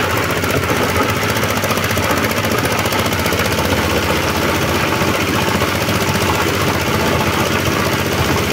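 Small engine driving an organic-waste chopper, running steadily with a fast, even beat as it shreds material into mash.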